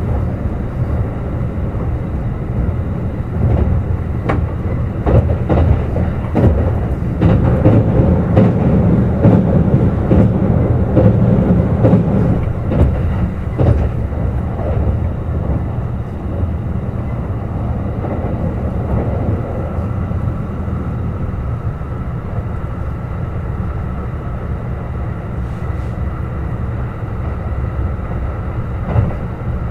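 Kintetsu Urban Liner Plus electric train running at speed, a continuous low rumble with the wheels clicking over rail joints from a few seconds in until about halfway. It then runs more steadily, with a faint steady tone coming in later.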